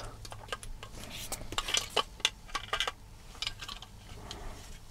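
Small hard-plastic clicks, taps and light scrapes, irregular, as an RC servo is handled and slid into place in the plastic chassis of a Tamiya MF-01X kit.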